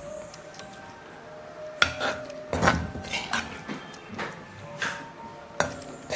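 Metal spoon scraping and clinking against a black iron kadai as cooked ivy gourd stir-fry is scooped out of it, a string of short scrapes about one or two a second, starting a little under two seconds in.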